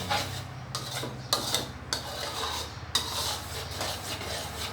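A utensil scraping and knocking against a pot, with irregular strokes, while stirring hot sugar syrup off the heat to cool it.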